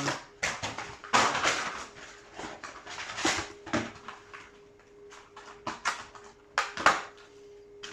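Cardboard and plastic packaging of a trading-card box being handled and torn open, giving irregular bursts of rustling and crinkling with a few sharper handling knocks. A faint steady hum runs underneath.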